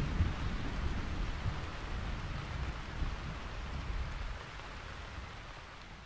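Steady rain falling, with a low rumble of thunder underneath, fading out gradually.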